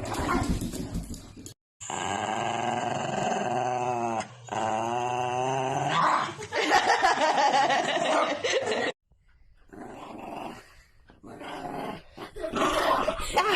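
A dog growling and grumbling in long, drawn-out pitched sounds, broken by a couple of abrupt short gaps.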